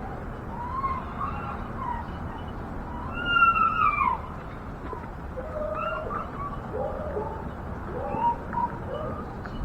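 Animals calling: a scatter of short pitched calls, with one louder drawn-out call that rises and falls about three seconds in.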